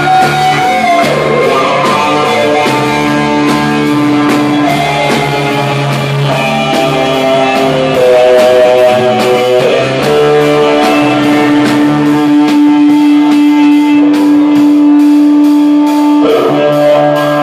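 Live rock band playing: electric guitar over a drum kit, loud and close. A long held guitar note rings through the second half.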